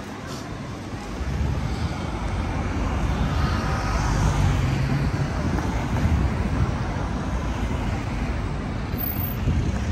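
City street traffic: a steady rumble of passing vehicles, with a heavier engine drone swelling past around the middle.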